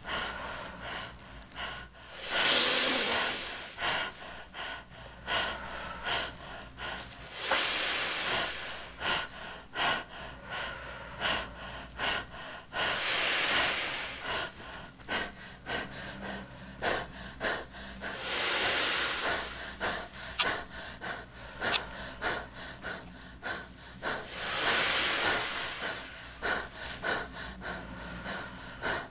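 A person inflating a large thin plastic bag by mouth. A loud deep breath is drawn in about every five to six seconds, each followed by a long blow into the bag, while the plastic crinkles and crackles throughout.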